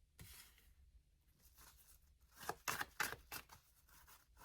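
Faint handling and shuffling of a deck of tarot or oracle cards: a run of soft, irregular card flicks and clicks, starting about a second in.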